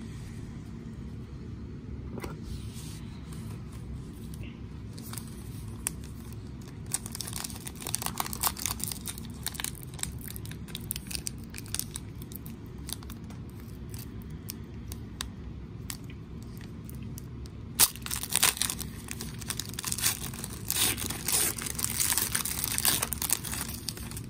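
Foil trading-card pack being torn open and crinkled by hand, in two spells of crackly rustling, with a single sharp snap about two-thirds of the way through. A low steady hum sits underneath.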